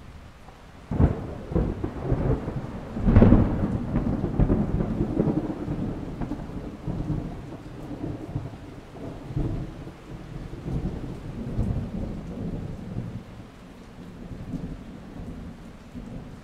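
Thunder: a sharp crack about a second in, a louder crack about three seconds in, then a long low rumble that slowly fades.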